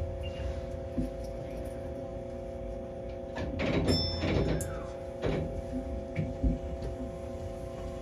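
Tokyo Monorail car standing at a station with a steady electrical hum, with single knocks and a cluster of clunks and rattles a little before and after the middle as the sliding doors close.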